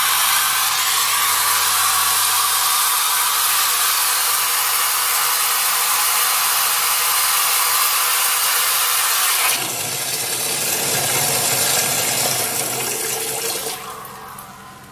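Thin high-pressure water jet from a small copper aspirator nozzle spraying into a plastic barrel: a loud, steady hiss. About nine and a half seconds in, the hiss drops lower in tone, then fades near the end.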